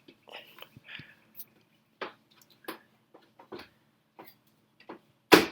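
2008 Mac Pro memory module being forced back into its slot: scattered small knocks and scrapes, then one loud snap about five seconds in as it clicks into place.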